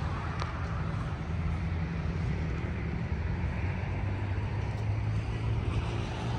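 Steady low rumble of motor traffic, with a droning engine hum underneath.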